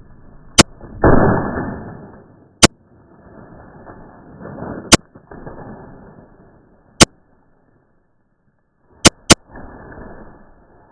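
Six sharp 'hit marker' click sound effects, the last two in quick succession, laid over muffled, slowed-down audio of a sledgehammer striking a box fan. The heaviest crash comes about a second in and fades over a second, with smaller crunching rumbles later.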